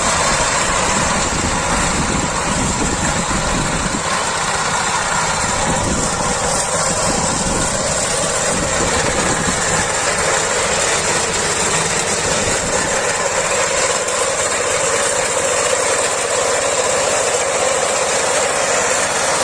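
Rice harvesting machine's engine running steadily, a constant loud mechanical noise with no changes in speed.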